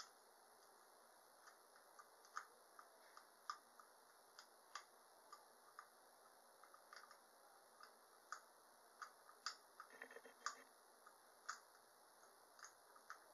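Dental floss snapping between teeth: faint, irregular clicks, about one or two a second, over near silence.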